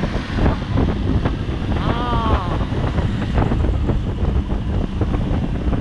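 Wind buffeting the microphone of a moving motor scooter, over the scooter's running engine and road noise, with a brief wavering higher-pitched sound about two seconds in.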